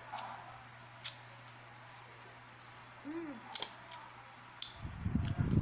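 A person eating a salted lemon wedge: scattered wet mouth clicks and smacks as the sour fruit is sucked and chewed, with a brief hummed 'mm' about three seconds in and a louder low mouth noise near the end.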